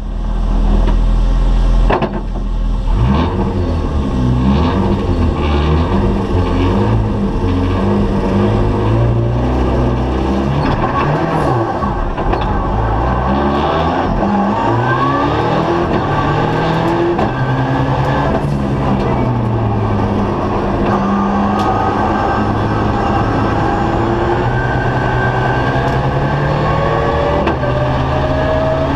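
Volvo 240 Turbo's turbocharged four-cylinder engine heard from inside the cabin at racing speed, its pitch repeatedly climbing and dropping back as the car accelerates hard along the circuit.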